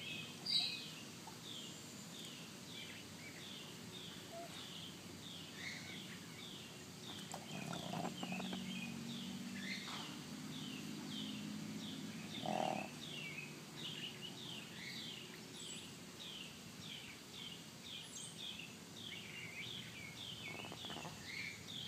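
A small animal calling in a fast, even series of short high chirps, each falling in pitch, about two a second, with one brief louder sound about half a second in.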